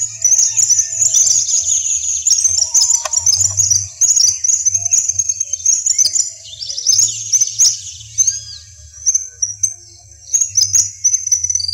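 Small songbirds twittering: a dense, near-continuous run of rapid high chirps and short trills, with brief lulls and one falling-then-rising whistled note a little past the middle.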